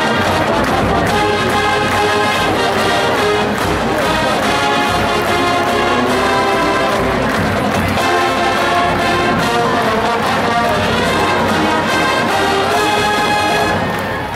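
College marching band playing a full brass arrangement — sousaphones, mellophones, trumpets and trombones over drums — ending on a held chord near the end.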